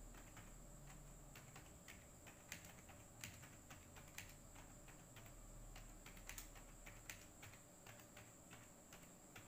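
Faint, irregular keystrokes on a computer keyboard: a line of text being typed.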